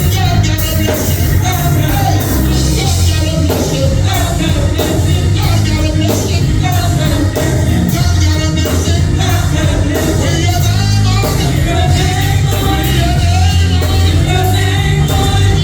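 Church worship music: singing over a band with a strong bass and a steady beat.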